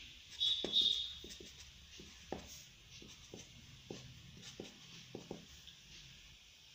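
Felt-tip permanent marker drawing on paper in short, scratchy strokes, with a brief high squeak in the first second.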